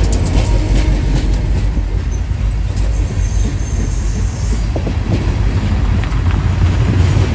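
Providence & Worcester limestone freight train rolling past with a heavy, steady low rumble, and a faint high wheel squeal about three to four and a half seconds in.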